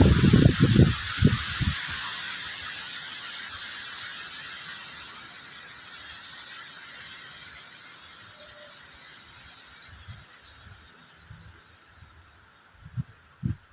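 Rain pouring with strong wind, a steady hiss that slowly fades away. Wind buffets the microphone in the first couple of seconds, and there are two low thumps near the end.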